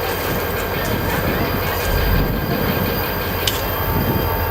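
Amtrak passenger train led by a GE P42DC diesel locomotive, a steady low rumble with a few faint, thin high tones, and a short click about three and a half seconds in.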